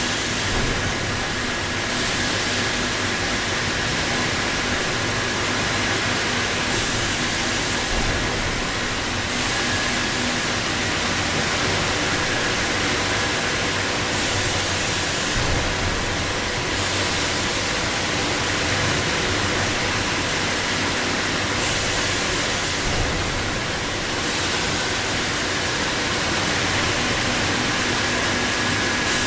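Industrial shelf and cart washing machine running: water spraying hard from its nozzles as a steady rushing hiss over a faint machine hum. The hiss grows brighter and duller every several seconds.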